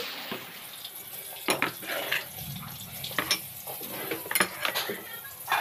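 Utensils and dishes clinking and knocking irregularly, a dozen or so sharp clinks, as curry is spooned out and served into glass bowls.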